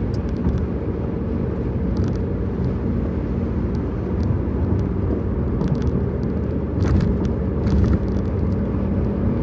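Steady road and engine rumble of a car at highway speed, heard from inside the car, with scattered crisp rattling clicks coming and going, bunched near the start, about two seconds in, and over the last few seconds.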